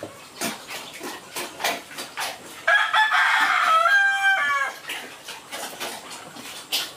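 A rooster crows once about three seconds in, a call of about two seconds that ends in a falling glide. Around it come quick short smacks of eating at the pig's trough.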